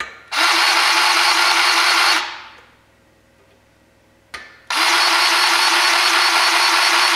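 Cordless DeWalt grease gun running in two powered runs of a couple of seconds each, each just after a sharp click, pumping grease through its hose into the grease fitting on an engine stand's geared head.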